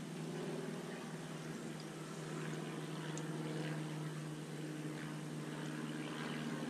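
A boat engine running at low, steady revs, its hum shifting slightly in pitch about two seconds in.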